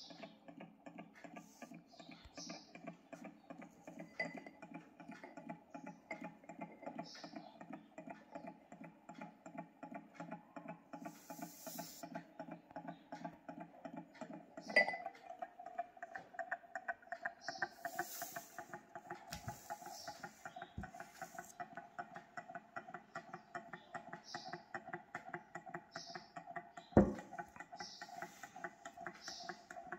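Low-temperature-differential Stirling engine running on a cup of hot coffee, with a quick steady ticking over a hum. There is a click about halfway through as a hand touches its top plate, and a sharp knock near the end.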